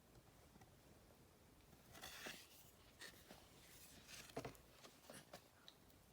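Faint rustling and soft ticks of a lift-the-flap picture book being handled, its stiff pages or flaps turning in a few brief scrapes.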